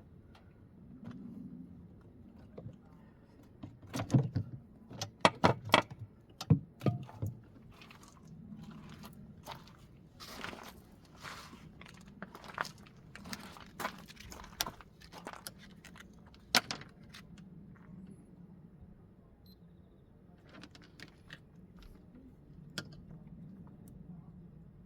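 Irregular sharp clinks and knocks, a dense run of the loudest about four to seven seconds in, then scattered ones until a little past halfway, like metal tools or parts being handled.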